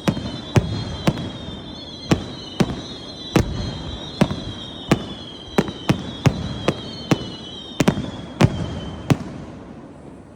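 Fireworks shells bursting in an irregular rapid series of sharp bangs, one or two a second. A wavering high whistle sounds underneath, and both stop about nine seconds in.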